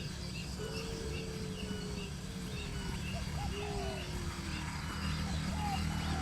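Birds calling: a string of short, high, evenly repeated chirps, with a few longer, lower drawn-out calls and short upswept calls, over a steady low rumble.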